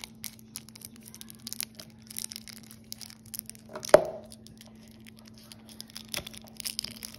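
Plastic shrink-wrap on a deck of game cards being picked at and torn open with fingernails: irregular crackling and crinkling, with one sharp snap about four seconds in.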